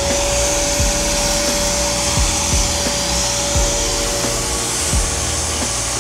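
Machining spindle running at a steady speed with a high whine and a rushing hiss. Background music with a regular deep bass beat plays along with it.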